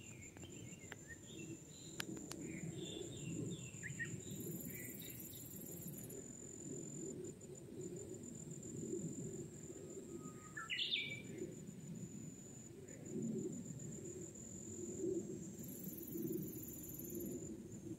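Wetland ambience: an insect keeps up a steady high pulsing trill, small birds chirp in the first few seconds, and one bird gives a call that rises steeply in pitch about eleven seconds in, all over a low steady rumble.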